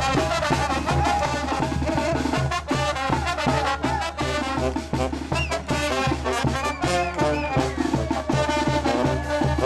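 Marching brass band playing a lively tune: trumpets and a sousaphone over a steady beat from a bass drum and snare drum.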